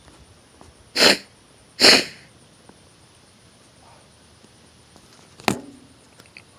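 A person sneezing: two loud, short nasal blasts about a second apart, then a third sharp one with a brief voiced tail near the end.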